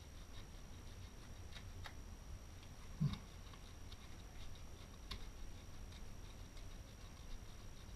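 Faint small clicks and scrapes of fingers working the collet and nut on the nose of a Dremel 3000 rotary tool, with one dull knock about three seconds in. A steady low hum lies underneath.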